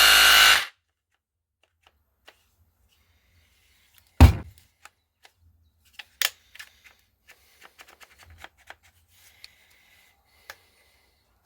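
A copy DeWalt DCH243-style cordless SDS hammer drill running, then cutting out under a second in as its battery gives up. About four seconds in comes a single knock, followed by scattered light clicks and taps as the tool is handled.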